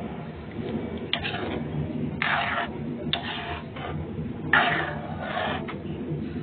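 A utensil stirring and scraping through thick cream sauce in a pan, in about four strokes of half a second to a second each, over a steady low hum.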